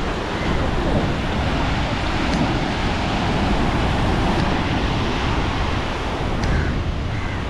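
Sea surf washing in steadily, mixed with wind buffeting the microphone in a constant low rumble.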